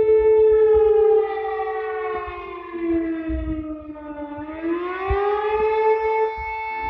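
Romanian emergency alarm siren wailing: a steady, loud pitched tone that sinks in pitch a couple of seconds in and climbs back up about two seconds later.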